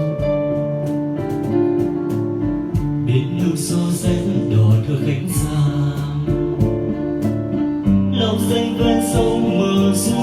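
Instrumental introduction of a song, with keyboard and guitar playing held notes and chords ahead of the vocal.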